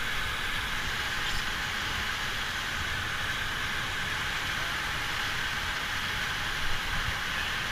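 Steady rushing of river water, a constant hiss with a low, uneven rumble underneath.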